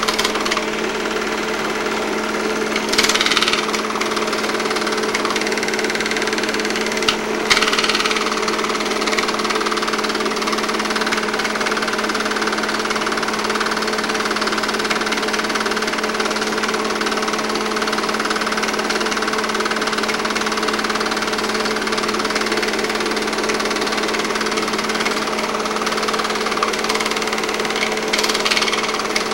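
8mm film projector running: a steady mechanical hum and rattle of the motor and film transport, with a few brief louder scratchy noises about 3 and 7 seconds in and near the end.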